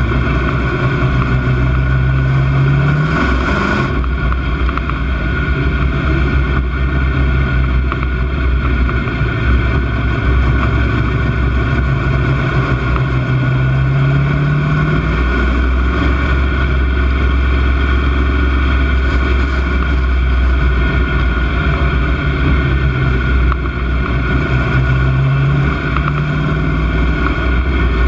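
Stock car's racing engine heard from inside the cockpit, running hard and loud. The engine note climbs in pitch three times, about every eleven seconds, as the car accelerates out of the turns on each lap of the dirt oval.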